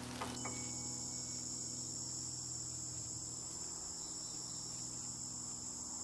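Crickets trilling in a steady, high-pitched chorus that sets in about a third of a second in, just as a soft rain-like hiss cuts off.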